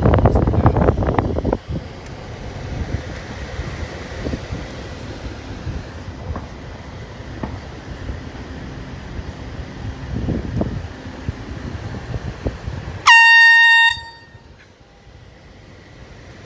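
A single short air horn blast about 13 seconds in, lasting under a second and cutting off abruptly. Before it, a loud rumbling noise in the first second and a half gives way to steady street noise.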